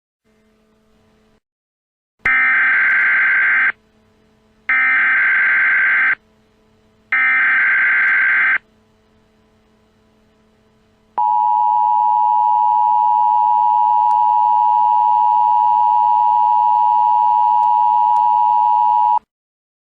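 Emergency Alert System header: three short bursts of SAME digital data tones, followed by the two-tone EAS attention signal. The attention signal is held loud and steady for about eight seconds, then cuts off.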